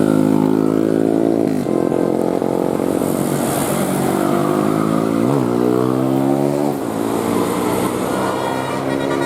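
Vehicle engine running under load, its pitch sagging and then dipping sharply and climbing again twice, about one and a half and five seconds in, as around gear changes; most likely a bus passing.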